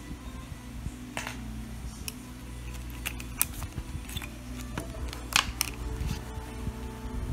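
Scattered sharp clicks and taps of metal clips and spring plates being fitted to a plastic scooter tail-light housing, the loudest about five and a half seconds in.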